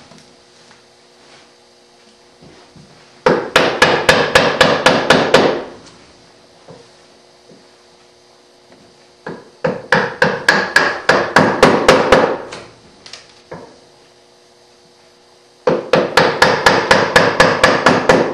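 A chisel being struck in quick runs of blows, chopping the waste out between the pins of a half-blind dovetail in a hardwood drawer front. Three runs of about a dozen sharp strikes each, roughly five a second, with short pauses between them.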